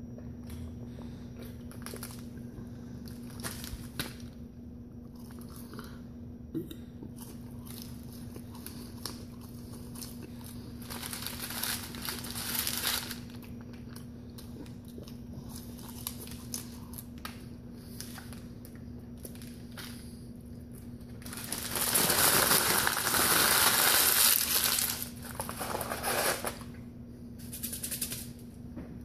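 Paper burger wrapper rustling and crinkling as it is handled, with small clicks and taps. A longer, louder bout of crumpling comes about two-thirds of the way through.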